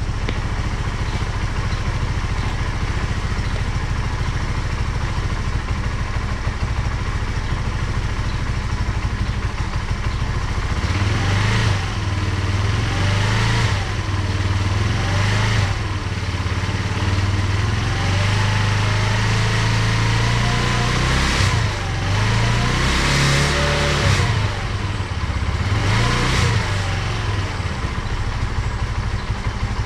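Teyin Falcon 200 scooter engine idling steadily through its repaired muffler, then revved in several short blips and one longer held rev before dropping back to idle. The exhaust runs with no leaks after the muffler fix.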